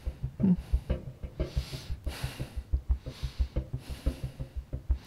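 Tense background score: a fast, even low pulse of about five beats a second under breathy rushes of noise that come roughly once a second.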